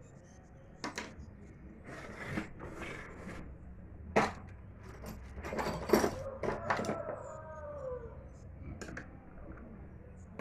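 Small parts of an Arge Max 60 electric fan being handled during disassembly: scattered clinks and knocks, with a few short scraping stretches between them.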